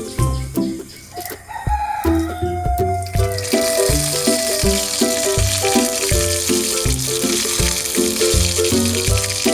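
Background music with a steady beat, and from about three and a half seconds in, a steady hiss of hot oil sizzling as a stuffed pointed gourd (potol dolma) fries in a tiny wok.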